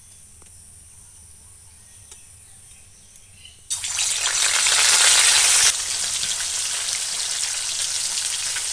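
Rohu fish pieces, rubbed with turmeric and salt, going into hot mustard oil in a kadai: after a quiet start, a sudden loud sizzle bursts in about four seconds in, stays loudest for about two seconds, then settles into a steady frying sizzle.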